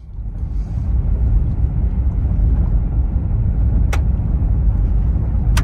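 Low, steady road and engine rumble heard inside the cabin of a moving Toyota 4Runner, with two short sharp clicks in the last couple of seconds.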